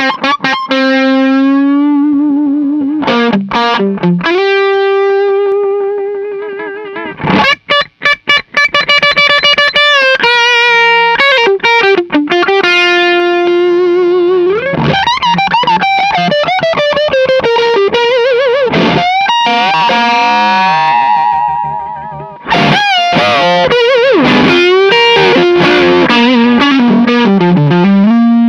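Distorted electric guitar lead through a Marshall Plexi Super Lead 100 valve head with all its controls at maximum, into a 2x12 cabinet with Celestion Vintage 30 speakers, miked. The guitar is a recorded ESP Eclipse II track sent back to the amp. It plays long held notes with wide vibrato and string bends, a note dying away about six seconds in, then fast picked phrases and more bent, singing notes.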